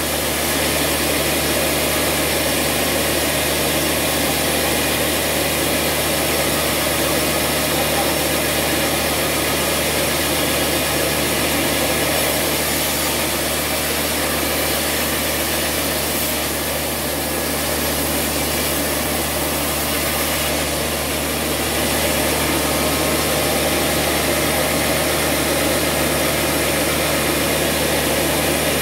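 Large sawmill band saw running steadily while a long wooden slab is fed through its blade. The sound eases slightly for a few seconds about two-thirds of the way through.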